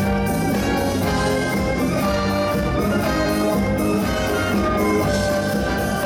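Live dance music played by an orchestra: bowed strings over drum kit and percussion, with a steady beat.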